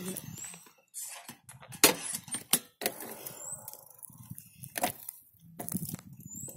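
Irregular light rattles and sharp clicks from a bicycle rolling over a paved road, with no motor running.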